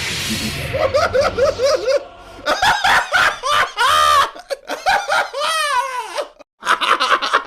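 A man laughing hard in several bursts. After a short hiss, there is a run of quick, even 'ha-ha' pulses. Then come louder, high-pitched laughs that rise and fall in pitch. The laughing breaks off briefly near the end and starts again.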